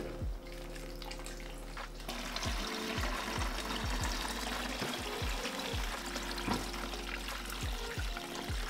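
Duck stock poured from a large aluminium stockpot through a metal strainer into a plastic container, a steady splashing pour that starts about two seconds in. Background music with a low beat plays throughout.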